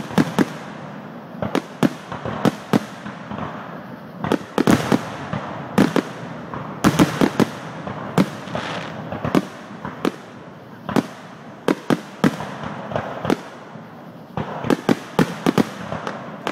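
Aerial firework shells bursting in a continuous barrage: sharp bangs in irregular succession, often several in quick clusters, with a noisy wash between them.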